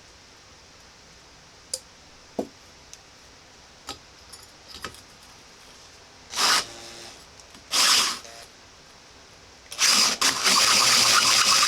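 A cordless drill with a bimetal hole saw, starting a cut into steel railroad track run slow and oiled. A few handling clicks come first, then two short pulls of the drill about two-thirds of the way in, and near the end the drill starts and runs steadily as the saw bites into the rail.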